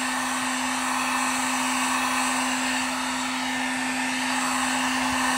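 Electric heat gun running steadily: a constant hum under an even rush of blown air, with no change in speed.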